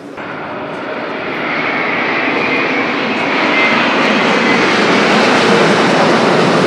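Fixed-wing aircraft engines, a loud rushing noise that swells over the first few seconds and then holds steady.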